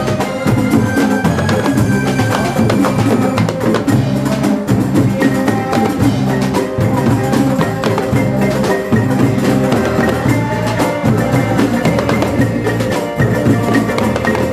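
Live group music with frame drums keeping a steady beat under electric guitars, while men sing into microphones.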